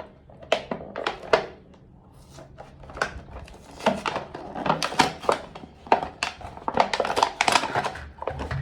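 A diecast toy car's packaging being opened and handled: an irregular run of rustling and clicking, busiest in the second half.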